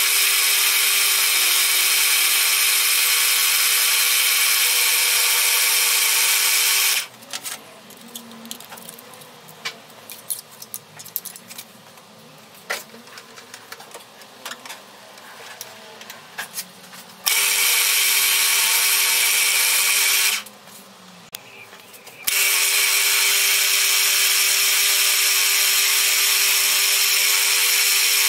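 Pillar drill running steadily while drilling holes in an aluminium plate. Twice the motor sound cuts off suddenly, leaving only light clicks and taps for a few seconds, before it starts again.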